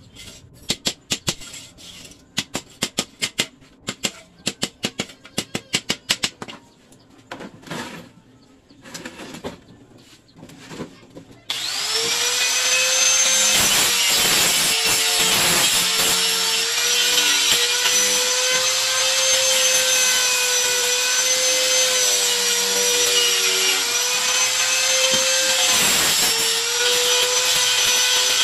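Hammer driving small nails into a wooden frame in quick strikes, then sparser taps. About eleven seconds in, a handheld angle grinder starts and runs steadily with a high whine and rushing noise as it sands the wooden slats of the tray, its pitch dipping briefly a few times as it bites.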